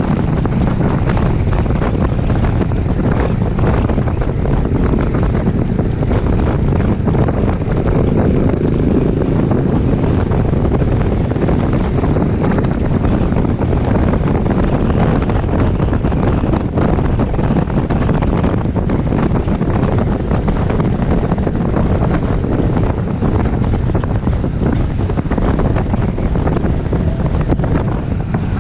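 Loud, steady wind rumble buffeting a GoPro microphone on a moving Honda Forza 300 scooter, mixed with the scooter's running and road noise.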